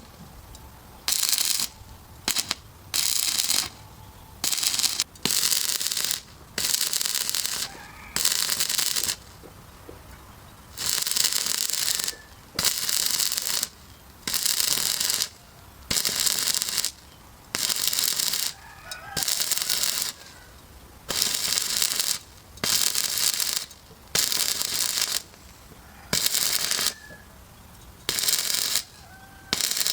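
Electric welding arc crackling and sizzling in many short bursts, each struck for half a second to a second and then broken, with brief pauses between.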